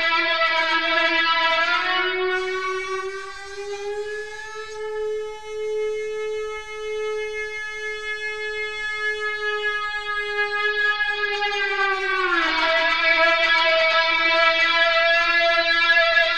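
Electric lap steel guitar played with a ceramic slide, one note held on without dying away by a Sound Stone Sustainer. The note glides slowly up a few seconds in, holds with a slow, even pulsing, then glides back down about twelve seconds in and holds, brighter.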